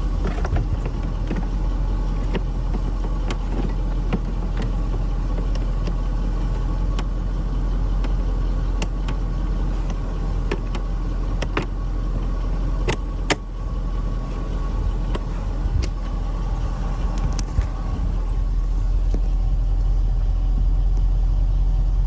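Scattered plastic clicks and knocks as the cabin air filter and its cover under the glove box are refitted, over a steady low rumble.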